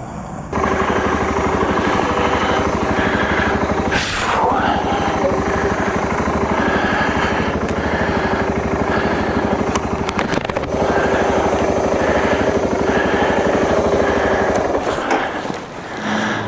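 The single-cylinder engine of a 2012 BMW G 650 GS Sertão is cranked on its electric starter in the cold, pulsing steadily for about fifteen seconds without catching. It is a no-start, part of a recurring starting fault that the decompressor lever has been suggested as a cause of. The cranking eases off near the end.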